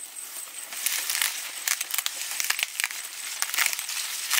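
Crackling and rustling of dry plant material, with a quick run of sharp snaps through the middle. A faint steady high-pitched tone runs throughout.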